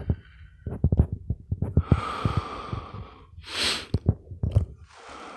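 A person breathing hard with a sharp sniff, over a series of short low thumps in two clusters.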